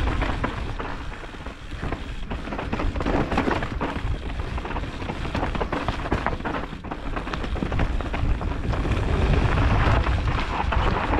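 Mountain bike descending a loose, dry dirt trail: tyres skittering over dirt and rocks, with frequent short knocks and rattles from the bike over rough ground, under a low rumble of wind on the helmet-mounted microphone.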